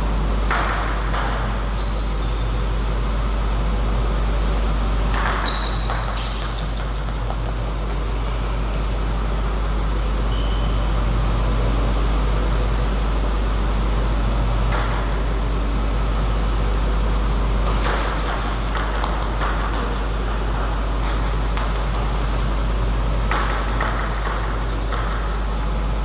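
Table tennis ball clicking against the table and rubber-faced paddles in several short rallies: quick runs of sharp pings separated by pauses. A steady low hum runs underneath.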